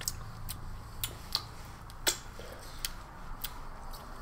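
Scattered light clicks and ticks from a small condiment packet being handled and put down at the table, about eight in all, the loudest about two seconds in.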